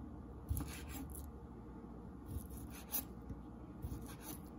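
Chef's knife slicing through smoked sausage and striking a wooden cutting board: a handful of quiet cuts spaced roughly half a second to a second apart.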